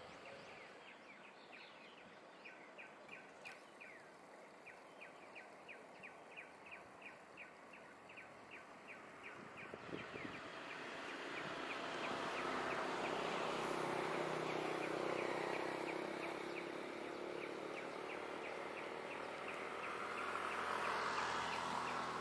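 Outdoor ambience: a quick, regular series of short high chirps, about two to three a second, through the first half. About halfway through, a louder even rushing noise swells up, then rises and falls twice.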